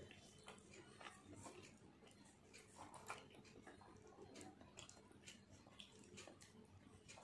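Faint eating sounds: scattered soft clicks of chewing and of fingers tearing luchi (puffed fried bread) and dipping it into mutton curry.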